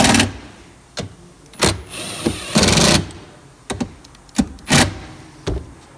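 A handheld power driver run in several short bursts to run a bolt into the taillight housing, with sharp clicks between the bursts. The longest burst lasts just under half a second.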